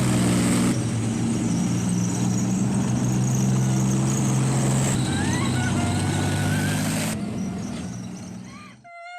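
A steady, heavy engine drone under a rush of noise, broken by abrupt cuts between clips and fading out near the end.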